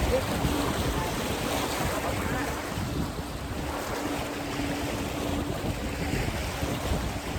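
Wind buffeting the microphone at a lakeshore, a steady rumbling rush heaviest in the low end, with a faint low hum coming and going through the middle.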